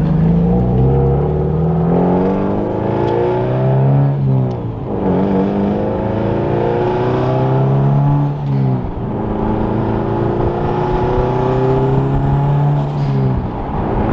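Subaru car engine accelerating hard through the gears. The pitch climbs in each gear and drops at upshifts about four, eight and a half and thirteen seconds in.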